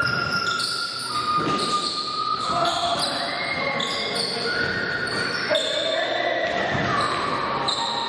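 Basketball being played on an indoor court: the ball bouncing and sneakers squeaking in a series of overlapping high-pitched squeals, with voices echoing in the hall.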